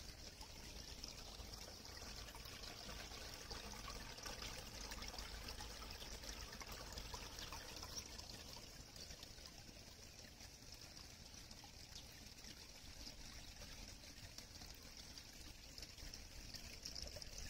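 Faint, steady trickling of water at a shallow stone-edged pool.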